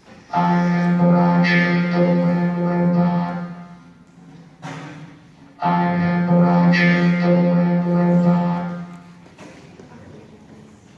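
Two long, steady, buzzing drone notes at the same low pitch, each lasting about three and a half seconds, with a short click between them.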